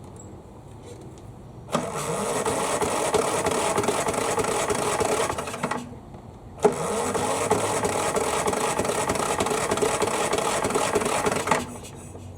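Craftsman push mower's engine cranking twice, each time for about four seconds, turning over without catching. It is a no-start with the air cleaner removed.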